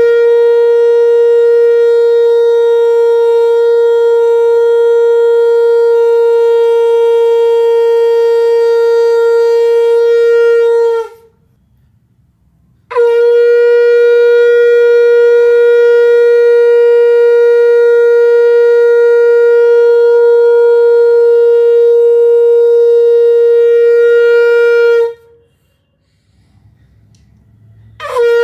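Conch shell (shankh) blown in long blasts, each a single steady held note lasting about twelve seconds. The first blast stops about eleven seconds in, a second starts after a short pause, and a third begins at the very end.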